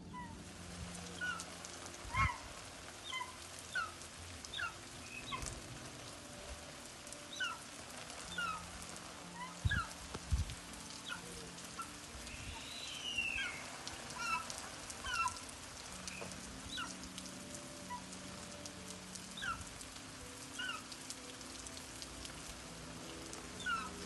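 Steady spray of water showering a perched eagle, with short falling chirps every second or so and a few low thumps.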